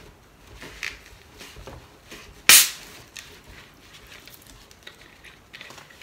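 Bottle of Pepsi twisted open: one sharp hiss of escaping carbonation about two and a half seconds in, dying away within half a second, with a few faint clicks of the cap around it.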